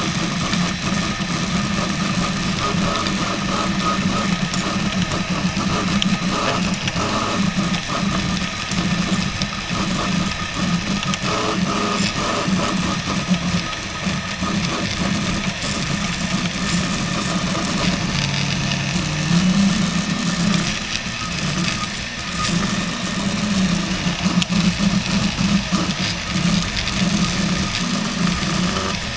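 RepRap Prusa Mendel 3D printer running a fast print at 120 mm/s: its stepper motors buzz and whine steadily as the print head and bed move, the pitch shifting up and down as the moves change speed and direction.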